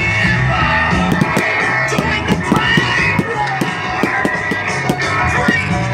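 Rock-style music with guitar and drums, with many short, sharp cracks running through it.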